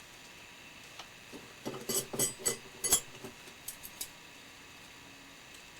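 Paper and small craft tools handled on a table: a flurry of light rustles and clicks about one to four seconds in.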